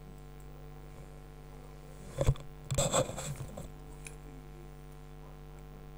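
Steady mains hum on the recording. A sharp click comes a little over two seconds in, followed by about a second of knocks and rustling.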